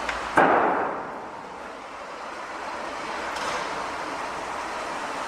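A single loud bang about half a second in, dying away over about half a second, over the steady noise of a city construction site.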